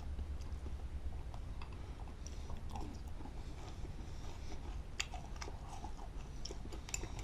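Someone chewing crunchy shredded-wheat cereal in milk, with scattered small crunches and clicks, over a steady low hum.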